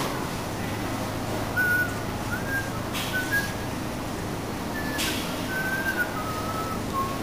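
Someone whistling a string of short notes, each held briefly at a slightly different pitch, over a steady low hum.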